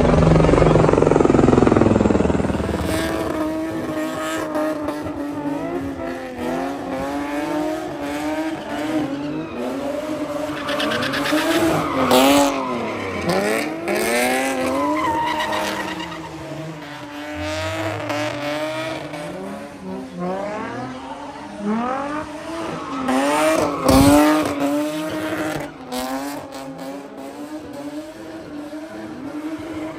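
A car doing donuts: its engine revving hard and held high, the pitch wavering up and down, over the squeal of spinning tyres.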